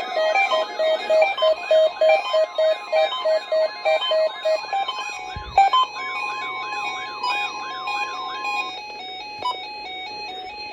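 Several NOAA weather radio receivers sound their electronic alert alarms together, set off by the SAME codes of a Required Weekly Test. A fast beeping, repeated warbling sweeps and a steady tone overlap, with a single thump about five and a half seconds in. The beeping stops about halfway, leaving a two-note alternating chime.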